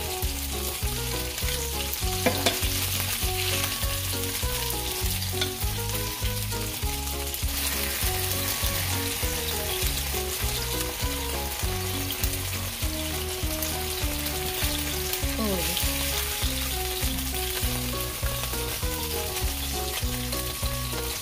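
Veal escalopes sizzling in butter in a hot frying pan, with a wooden spatula working in the pan as the meat is lifted out. Soft background music with a steady beat runs underneath.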